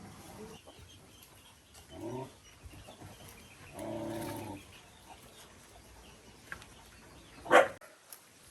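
Poultry calling: two drawn-out calls, then a short, much louder squawk near the end.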